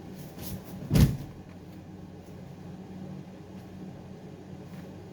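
Grappling dummy set down on the floor mat: one heavy thud about a second in, with a lighter knock just before it, over a steady low hum.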